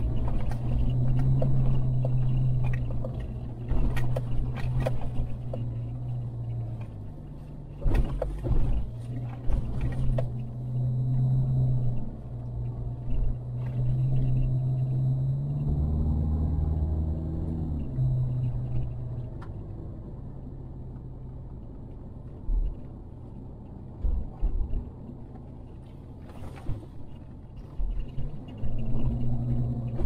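Car engine running steadily inside the cabin while driving a rough dirt road, its drone dropping in pitch for a couple of seconds about halfway through. Scattered knocks and rattles come from the body and suspension over bumps, a few at a time.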